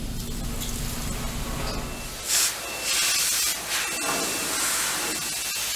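Paint spray gun hissing in loud bursts as it sprays coating onto a ship's hull, beginning about two seconds in. Before that there is a low steady rumble.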